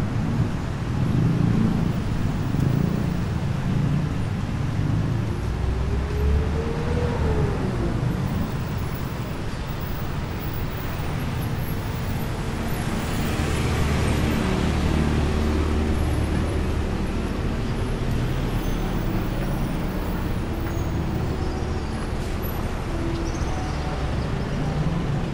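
Busy street traffic: a steady low rumble of vehicle engines and tyres. One engine's pitch climbs for a couple of seconds and drops again about six seconds in, and a louder rush of a vehicle passing close comes about halfway through.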